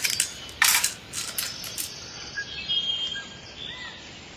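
Small plastic playset pieces being handled and set down on a cutting mat: a few sharp clicks and clatters in the first two seconds, then quieter handling noise.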